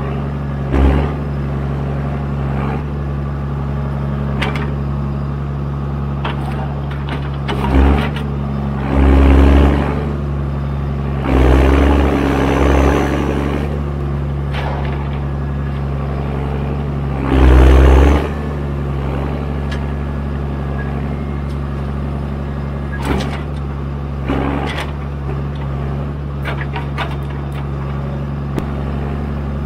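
John Deere 1410D forwarder's 6.8-litre diesel engine running steadily, the old loud version without Eco3. Over it come sharp knocks and a few louder rumbling bursts of a second or so, the loudest about two-thirds of the way through, as the crane handles logs.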